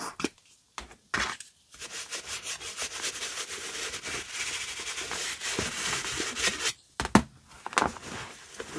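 A brush scrubbing foam cleaner over a leather shoe, around its tongue. A few short scrapes come first, then a dense run of fast rubbing strokes from about two seconds in until nearly seven seconds. A short break follows, then a few separate strokes.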